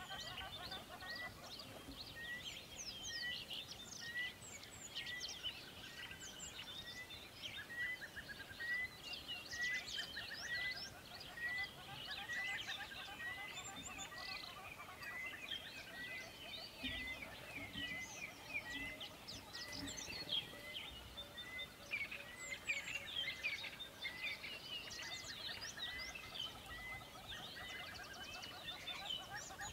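Many birds chirping and twittering, with one short rising note repeated about once a second through the chorus.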